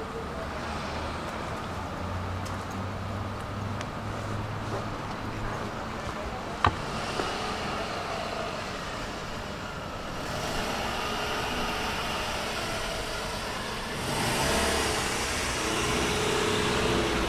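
City street traffic: car engines and passing vehicles, louder over the last few seconds, with a single sharp click about a third of the way in.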